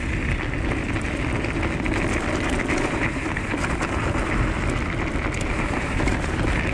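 Diggler DSK kick scooter's tyres rolling over a thin crust of crunchy snow and dirt trail, giving a steady crackling hiss, with a low wind rumble on the microphone.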